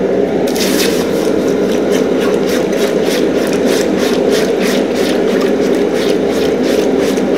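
Red-hot forged steel hot cut hardy being quenched in a bucket of water, held in tongs. The water boils violently against the steel: a loud, steady rumbling boil with fast crackling pops all through it.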